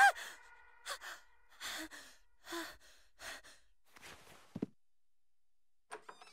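Cartoon boy's voice panting in fright on waking from a nightmare: a gasp, then about five heavy breaths under a second apart that fade away. A short low thud follows, with a few faint clicks near the end.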